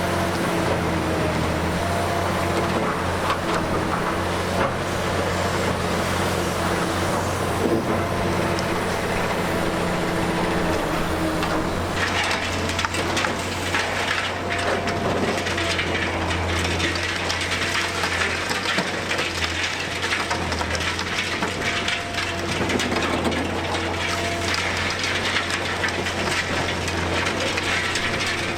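Liebherr R 960 high-reach demolition excavator at work: its diesel engine and hydraulics run with a steady hum while the demolition attachment crushes building material, with continual cracking and crumbling of debris that grows denser about halfway through.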